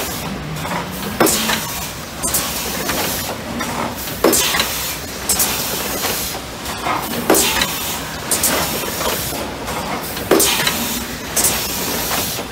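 Industrial plastics machine running behind its guard: a steady hiss of air with a sharp blast of released air every one to two seconds as the machine cycles.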